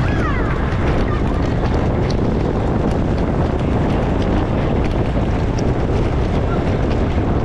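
Steady loud wind rushing over the microphone of a camera on a bicycle racing at speed. A few faint short falling tones come through in the first second.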